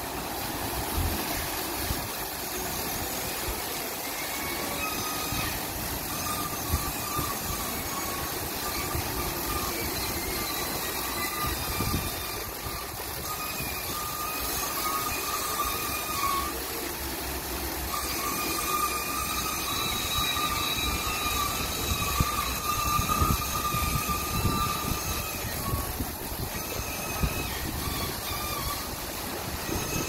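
Kärcher gantry truck wash running, its rotating brushes scrubbing a truck cab with water spraying. There is a steady mechanical rumble, with a faint machine whine that comes and goes.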